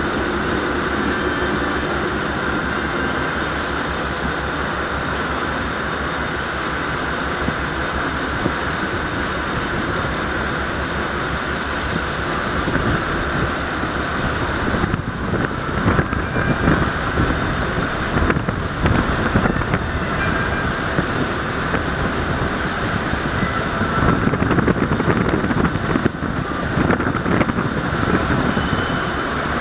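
Diesel engine of a JR West KiHa 40 railcar idling with a steady low throb. Past the halfway point, louder uneven noise rises and falls over the engine.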